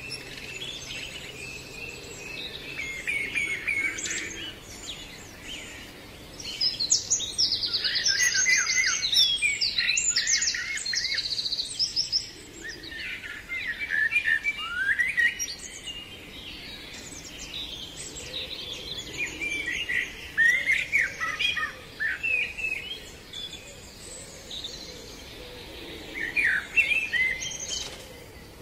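Wild songbirds singing in a spring chorus: overlapping chirps and whistled phrases, with a fast, high trill about a quarter of the way in.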